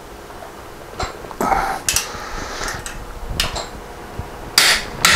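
Steel hand tools clinking and knocking as a torque wrench and a socket ratchet are handled and fitted onto the flywheel nut: a handful of separate short metallic knocks, the loudest near the end.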